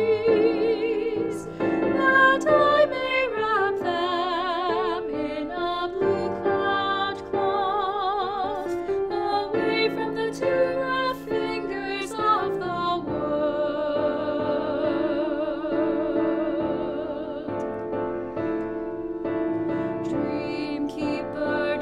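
Voices singing a choral song with vibrato over piano accompaniment, the sung words running "bring me all of your heart melodies" and "away from the too rough fingers of the world".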